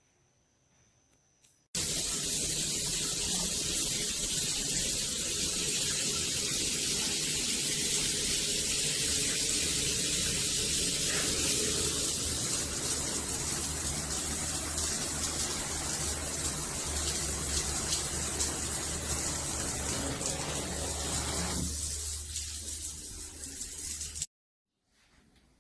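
Shower water spraying steadily from a gotonovo rain shower system, an even hiss of falling water. It starts suddenly about two seconds in and stops suddenly near the end.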